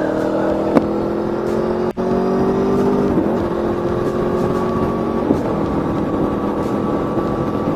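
Aprilia Tuono V4's V4 engine pulling under acceleration, its pitch climbing steadily and dropping back at two upshifts, about three and five seconds in, with wind rush on the microphone.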